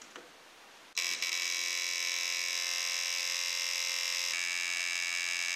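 Induction coil of a late-1800s Gaiffe-type portable electrotherapy machine (pocket battery) buzzing as its spring interrupter vibrates against the contact screw. The coil is switched on with a light click and the steady buzz starts suddenly about a second in; its tone shifts slightly a little over four seconds in. The buzz is the sign that the restored machine is working, turning the battery's low-voltage DC into a high-voltage pulsed current.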